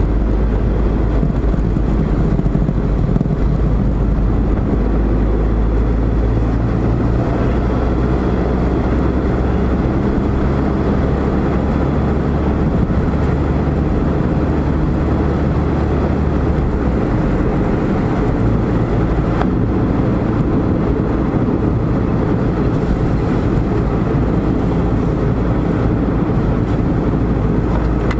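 Car engine and tyre road noise heard from inside the cabin while driving, a steady low rumble. The low hum shifts once, about two-thirds of the way through.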